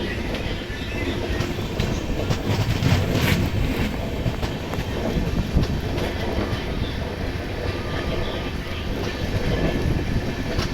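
A train running along the track, its wheels clattering over the rails with a steady rumble and irregular knocks.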